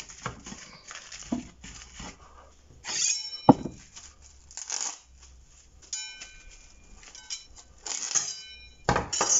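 Plastic cling film crinkling as it is pressed over a plate, and being pulled off its roll in a few pulls with brief high squeaks, with one sharp tap about three and a half seconds in.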